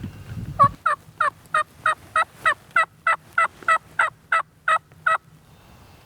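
A long series of about fifteen turkey yelps, evenly spaced about three a second, loud and close, stopping about five seconds in.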